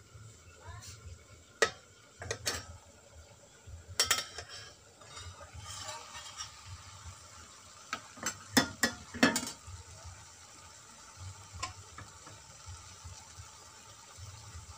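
A metal lid is lifted off a kadai and a spatula knocks and scrapes against the pan as spinach is stirred, giving sharp metallic clinks in ones and twos, then a quick cluster of loud clanks about two-thirds of the way through. A low sizzle from the cooking greens runs underneath.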